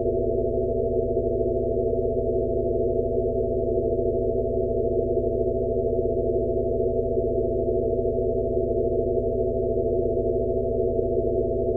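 Synthesized sound-therapy track: several steady electronic sine tones layered over a low drone and a soft band of noise, with nothing high-pitched, sold as a Rife frequency for tinnitus relief. A faint, gentle swell comes a little more than once a second.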